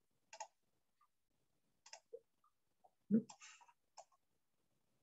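A few scattered computer mouse clicks, with a louder, duller thump just after three seconds in.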